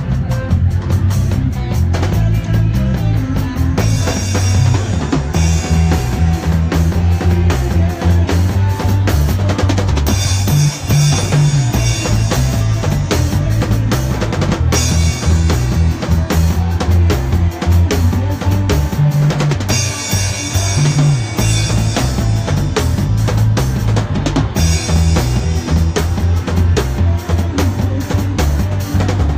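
Drum kit played loudly in a live band, with bass drum, snare and stretches of cymbal crashes over a heavy, stepping bass line.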